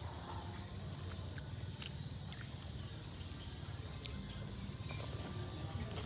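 Chewing and mouth sounds while eating green papaya salad: small irregular clicks and smacks over a steady low rumble.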